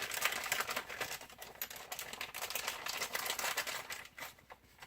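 Dense, rapid small plastic clicks and rattles of hands handling a DJI Phantom 3 Pro's camera gimbal mount and its rubber anti-vibration dampers, thinning out and stopping near the end.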